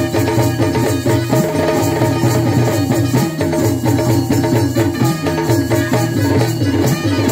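Yakshagana ensemble music: a chande drum struck with sticks and a maddale barrel drum played by hand, in a fast, steady rhythm over a held drone.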